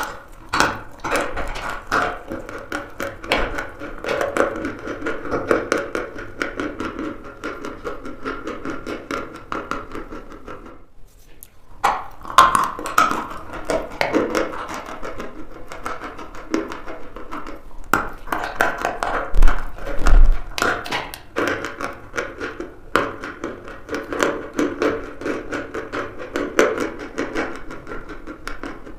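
Close-up crunching and chewing of dry chalk: a dense, irregular run of crisp crunches, with a brief pause about a third of the way through.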